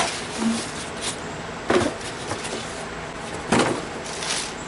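Clear plastic bag around a new circular saw crinkling and rustling as it is handled and pulled open, in several short spells with a few light knocks.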